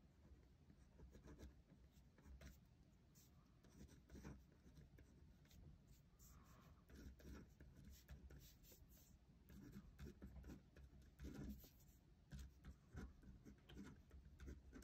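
Faint scratching of a pen writing on paper, in many short, irregular strokes.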